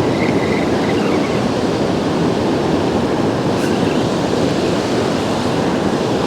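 Steady, loud rush of fast-flowing river water, an even noise with no rhythm or pitch.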